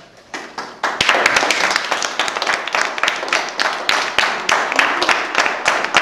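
A group of schoolchildren clapping: a few scattered claps, then steady applause from about a second in.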